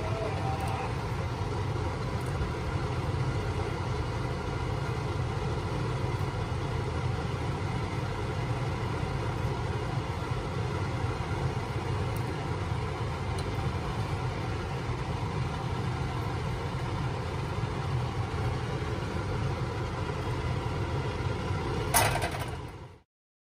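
A steady low rumbling hum with faint steady tones over it, unchanging throughout, then a single sharp knock about 22 seconds in. The sound cuts off abruptly just after.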